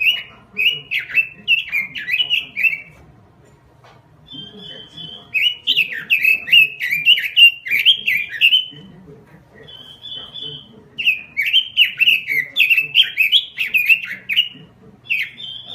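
Red-billed leiothrix (Pekin robin) singing vigorously: three bursts of quick warbling notes, each led in by a short steady high whistle, with pauses of a second or two between bursts.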